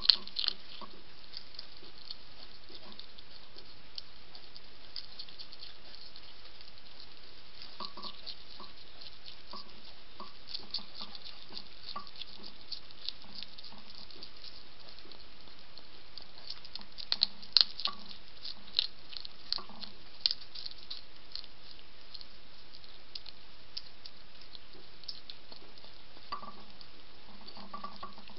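Hedgehog crunching dry kibble from a plate: a run of crisp, irregular chewing clicks, busiest about two-thirds of the way through, over a steady background hiss.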